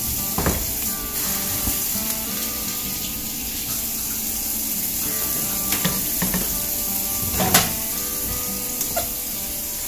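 Pot of water boiling with chicken feet in it, stirred with a slotted spatula that clinks against the pot a few times, the loudest clink about three quarters of the way in.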